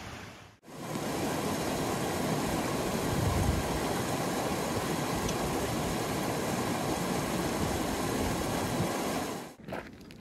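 Mountain stream rushing over boulders, a steady loud rush of water. It cuts off suddenly about a second before the end, and a few footsteps crunch on loose gravel.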